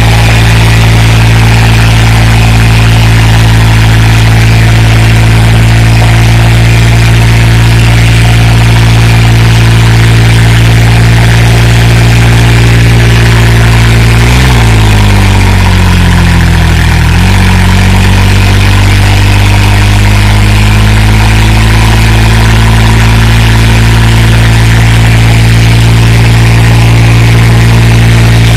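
Swaraj 963 FE tractor's diesel engine running hard under heavy load as it pulls two harrows. Its steady drone drops sharply in pitch about halfway through, then picks back up and climbs over the next few seconds.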